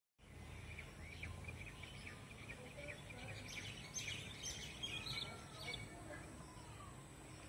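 Faint outdoor ambience of small birds chirping, busiest around the middle, over a low steady rumble and a thin steady high-pitched tone.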